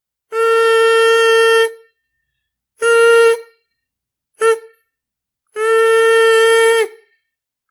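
Sofa squeaking as it is pushed across a tile floor: four separate steady-pitched squeaks, two long and two short, each dipping slightly in pitch as it ends.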